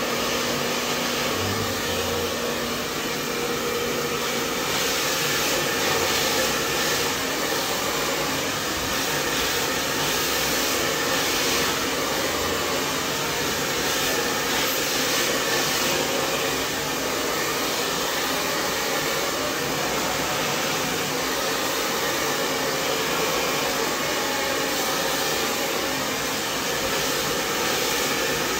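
Handheld hair dryer running steadily: an even rush of blown air with a faint hum underneath, used to blow-dry long hair straight over a round brush.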